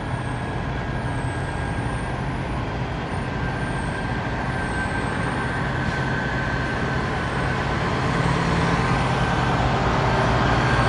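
Diesel semi-truck engines running: a steady low rumble with a faint steady high tone above it, growing slowly louder toward the end.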